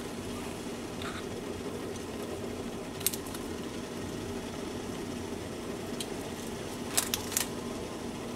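Foil wrappers of bouillon cubes being unwrapped and the cubes crumbled over raw meat in a pot, giving a few short crinkles and clicks. Under them runs a steady low hum.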